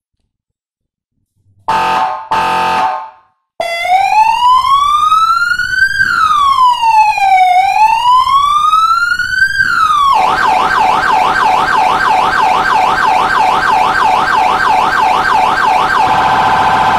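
Federal Signal police siren run through its tones. It starts with two short horn blasts, then a wail that rises and falls slowly twice. About ten seconds in it switches to a yelp of about three sweeps a second, and near the end to a rapid warble.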